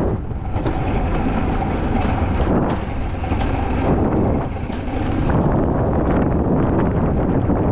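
Alpine coaster sled running along its rail track at speed, a steady rush of rolling noise mixed with wind buffeting the microphone, easing briefly a few times.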